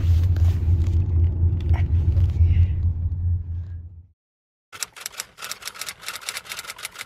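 A loud low rumble, then silence about four seconds in. Near the end comes a quick, even run of clicks, about five a second: a typing sound effect as a title card spells itself out letter by letter.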